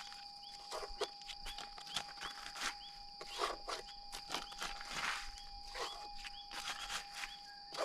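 Footsteps crunching over hard, dry clay ground, irregular, about two a second. Under them are a steady high insect drone, a steady even mid-pitched tone and small repeated chirps.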